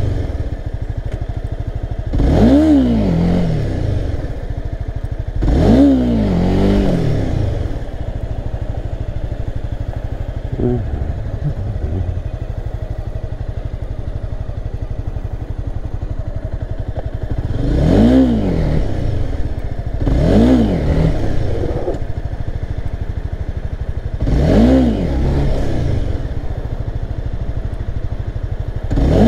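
Honda CBR300R's single-cylinder engine revved in quick throttle blips, each rising and falling back within about a second, about six times, with the engine running at low revs in between: the rider is building revs to pop the clutch for wheelie attempts.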